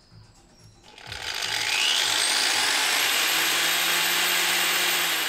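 Angle grinder with a wire wheel switched on about a second in. Its whine rises as it spins up, it runs free with no load, and it starts to wind down near the end.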